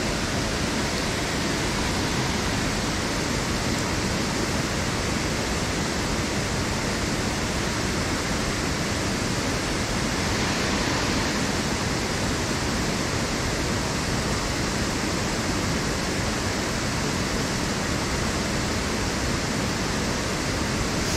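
Water pouring over a low river weir: a steady, even rushing noise.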